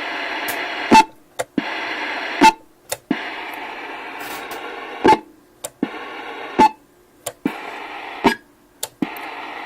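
RCI 2980WX ten-meter radio keyed and unkeyed about five times. The receiver's static hiss drops out at each key-up with a loud pop and comes back with a smaller click when the mic is released. The pop on transmit is the fault the owner is trying to cure.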